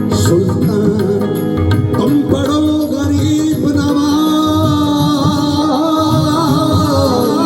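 Live Punjabi folk music played loud over a concert sound system: a drum beat under held, sung or played melody notes that settle into a long sustained line about three seconds in.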